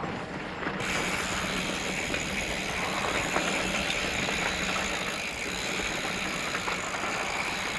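Mountain bike rolling along a dirt trail: steady tyre and drivetrain rattle with wind on the action camera, turning brighter and hissier about a second in.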